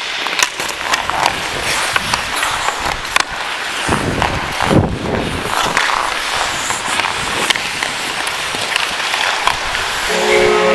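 Hockey skate blades scraping and carving on rink ice, with sharp clacks of sticks and puck, heard up close from a player-worn camera. Near the end a steady horn chord of several tones comes in: a goal horn.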